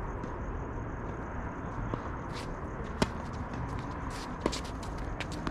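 Tennis rally: a few sharp racket-on-ball hits roughly a second apart, the loudest about three seconds in, with shoe scuffs and footsteps on the court over steady outdoor background noise.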